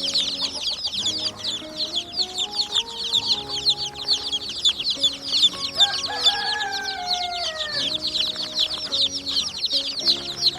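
A flock of chickens clucking over a continuous dense high chirping, with a rooster crowing once about six seconds in, its call falling away at the end.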